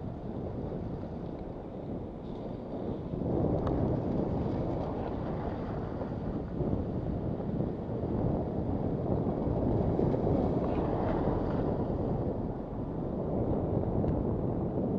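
Wind buffeting the microphone of a moving bike-mounted camera: a steady low rumbling noise that grows louder about three seconds in.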